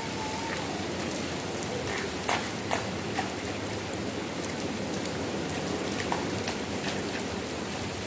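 Steady rain falling, a even hiss with scattered sharp taps of individual drops striking close by.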